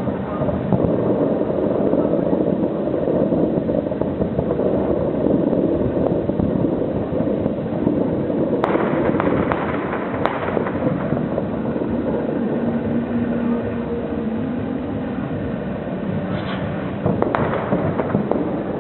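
Fireworks display: a dense, continuous rumble of overlapping bursts, with sharp cracks about eight and a half and ten seconds in and again near the end.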